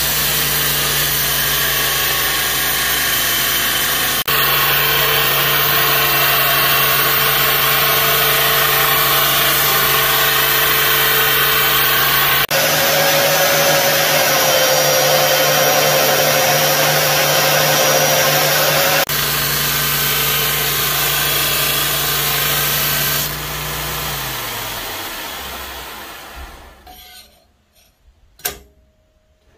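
Belt grinder running, its abrasive belt grinding a steel knife blank cut from an old circular saw blade: a steady motor hum under a loud grinding hiss. Near the end the motor winds down, and a couple of light knocks follow.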